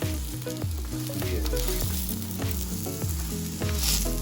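Paratha sizzling as it fries in oil on a hot griddle, with background music throughout.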